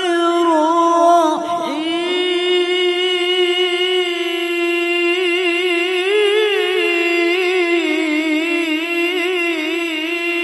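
Male Quran reciter holding one long, high note in the melodic tilawah style, drawing out the final vowel of 'ar-Rahman' in the basmala on a single breath. Wavering ornamental turns run through the second half.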